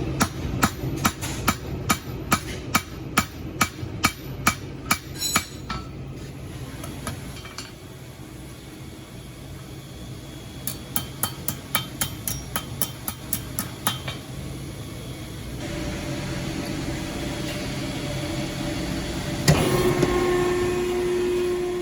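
Hammer blows texturing a 3/16 by 1/2 inch iron bar, struck in a steady rhythm of about three a second, in two runs separated by a pause of several seconds. In the last few seconds a steady machine hum starts, with one loud clank near the end.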